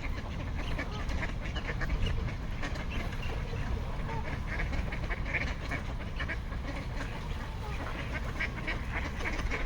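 A flock of ducks quacking over one another without pause, with geese calling among them. A steady low rumble runs underneath.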